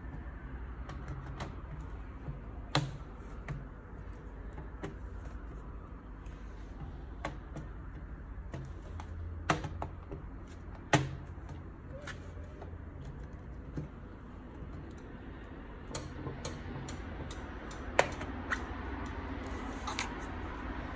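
Plastic bottom cover of a Lenovo Legion Y540 laptop being pressed shut around its edges. Its clips click and snap into place in a scattered series, with four sharper snaps among them.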